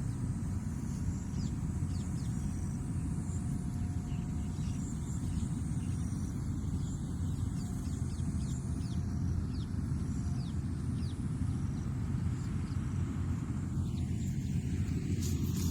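Rice harvester engine running steadily with a low, even rumble. Faint bird chirps can be heard above it.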